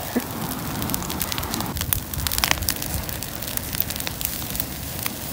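A bonfire of dry grass and brushwood burning, with many sharp crackles and pops over a steady noise of the flames.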